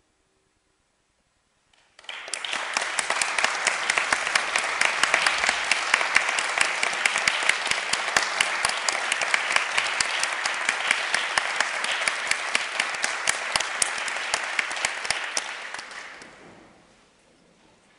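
Audience applause: dense clapping breaks out suddenly about two seconds in, after a brief hush, holds steady, and dies away near the end.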